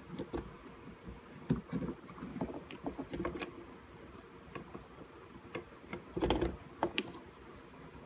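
Irregular small clicks, taps and knocks of hand work on a circuit board at a bench, as old solder is cleared from the board's holes with a soldering iron and desoldering wick. A louder cluster of knocks comes about six seconds in.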